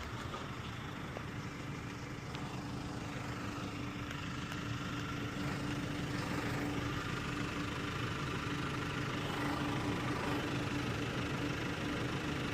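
Holden VY Commodore's engine running steadily, heard from inside the cabin: a steady hum that grows slightly louder through the stretch.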